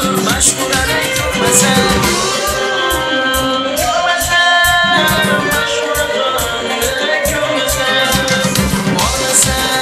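Uzbek estrada pop music in a mostly instrumental passage: a fast, steady drum and percussion beat under a synthesizer melody.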